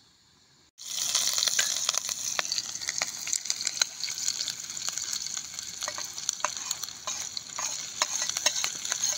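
Chopped onions frying in hot oil in a frying pan on a portable gas-cylinder stove: a steady sizzling hiss peppered with sharp crackles of spattering oil. It starts suddenly about a second in.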